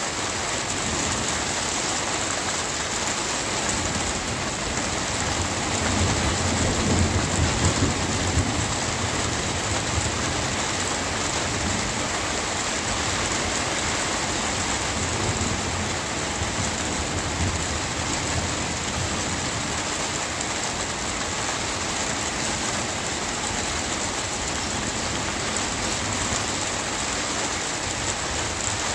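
Steady rain hissing, with a low roll of thunder rumbling from about five seconds in and fading out by about ten seconds.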